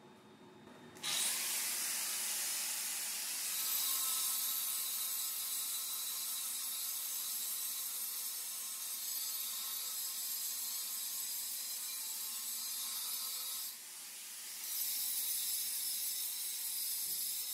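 Electric welding arc sizzling steadily while fill passes are laid in a prepped joint on thick steel plate, starting about a second in. Near the end the arc stops briefly and is struck again.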